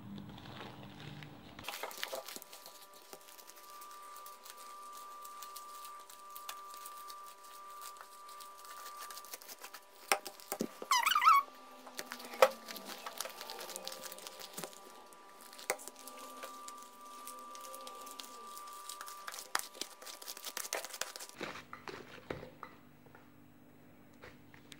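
Glue-and-borax slime being kneaded and stretched by hand: scattered sticky squishes, crackles and clicks, with a brief squeak about eleven seconds in.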